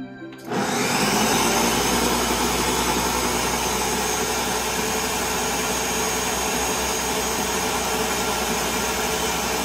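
Ninja countertop blender starting about half a second in and then running steadily, blending a liquid egg mixture with lime peel.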